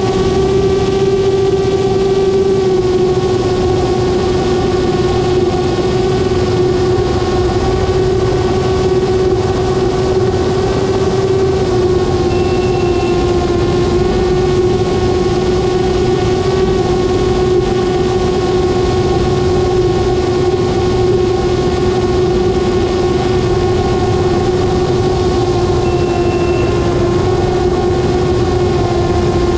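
Light aircraft's engine and propeller droning steadily in cruise: one strong steady pitch with overtones over a rushing noise, the pitch sagging very slightly at times.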